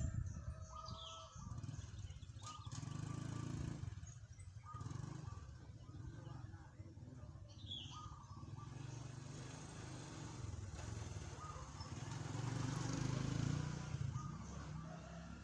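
Zebra dove (perkutut) cooing: short, clear notes repeated every couple of seconds over a steady low rumble.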